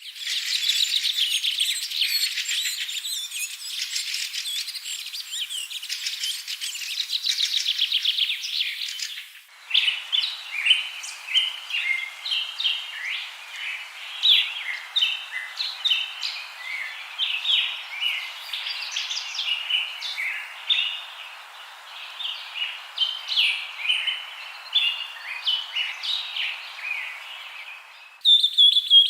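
Songbirds chirping and singing in a dense, overlapping chorus. About nine seconds in, the sound changes abruptly to separate, sparser chirps over a steady background hiss, and it changes abruptly again near the end.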